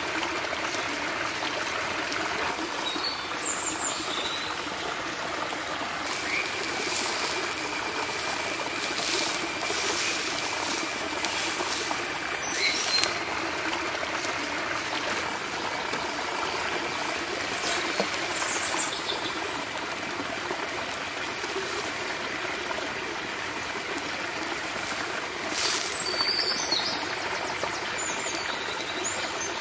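Outdoor ambience of steady running water, with a few short bird chirps and a thin, high steady whine above it.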